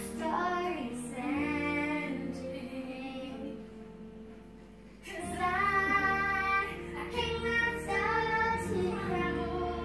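Music: a song with a high sung lead voice over an instrumental backing. It thins out and drops quieter about three and a half seconds in, then comes back in fully about five seconds in.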